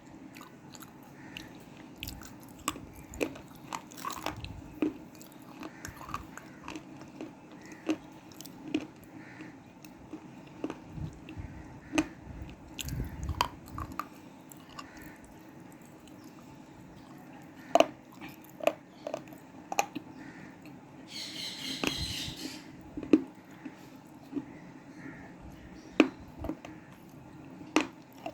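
Close-miked biting and chewing of hard black cement slate: irregular sharp crunches and cracks, with a faint steady hum underneath. About three quarters of the way through comes a brief, dense, high-pitched crackle, like a piece crumbling between the teeth.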